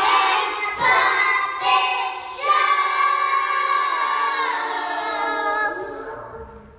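Young children singing a song together, ending on a long drawn-out note that slides down and fades away.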